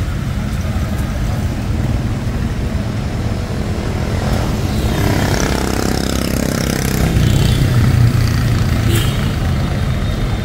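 City street traffic heard from a moving cyclo: a steady low rumble, with a motor vehicle passing partway through, its pitch falling as it goes by.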